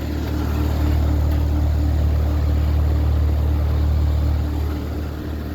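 Carrier heat pump outdoor unit running in heat mode: steady low compressor hum with a steady higher tone and fan noise, swelling louder for a few seconds in the middle.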